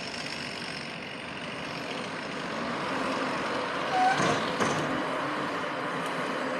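A heavy vehicle's engine running, growing louder about two seconds in, with a short squeak and a couple of sharp clanks about four seconds in.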